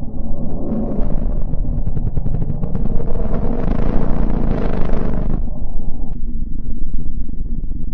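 Space sonification presented as the sound of the planet Mercury: a dense, deep rumbling noise with a crackling grain. About a second in, a hiss rises over it, swells, and cuts off abruptly about five seconds in, leaving the low rumble.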